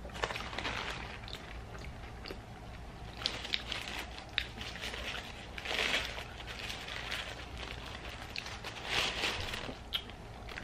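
Close-miked eating sounds: chewing and small mouth clicks, with a paper burger wrapper crinkling as a wrapped cheeseburger is picked up and handled. The crinkling is loudest about six seconds in and again about nine seconds in.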